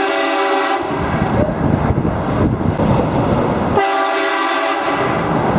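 Vehicle-mounted train horn sounding two loud blasts of several steady tones at once, each about a second long. The first cuts off under a second in; the second comes about four seconds in. Street noise fills the gap between them.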